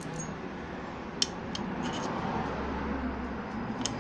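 Steel bolts clicking against the aluminium clutch cover of a Honda CD 70 engine as they are set into their holes by hand: a few short metallic clicks, the loudest about a second in, over a steady background hiss.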